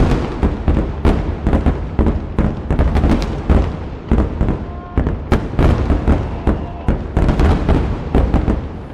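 Aerial firework shells bursting in rapid, overlapping succession, several sharp bangs a second over a continuous deep rumble.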